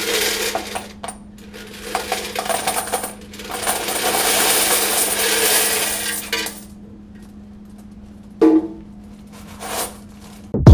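A mass of coins pouring and rattling, in several pours over the first six seconds, then two short knocks.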